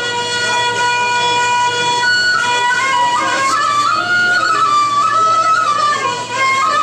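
Traditional Arabic instrumental music: a single melody instrument, flute-like in tone, holds a long note for about two seconds, then plays a wavering, ornamented tune.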